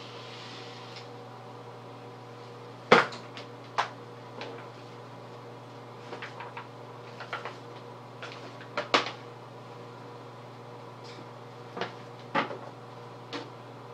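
Pie plates being handled against the face and body, giving a scatter of sharp clacks. The loudest come about three seconds in and about nine seconds in. A steady low electrical hum runs underneath.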